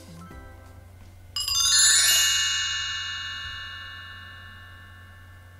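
Soft background music, then about a second and a half in a sudden shimmer of bright bell-like chime tones that ring on and slowly fade away over about four seconds.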